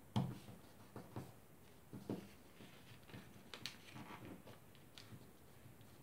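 A sheet of origami paper being folded and creased by hand on a wooden tabletop. It makes an irregular string of soft rustles, taps and crisp crinkles, the loudest just after the start.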